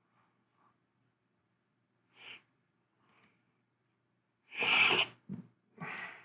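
A man sneezing into his hand: a few faint breaths, then one loud sneeze about four and a half seconds in, followed by a short low thump and a second, weaker burst near the end.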